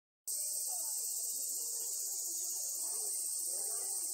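Steady high-pitched insect chorus buzzing, starting suddenly about a quarter second in, with faint distant voices murmuring underneath.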